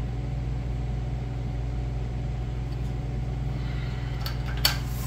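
A steady low machine hum, with a few metal clinks about four seconds in, the loudest a single sharp clink, as a stainless V-band clamp and flange are handled and fitted onto a turbo outlet.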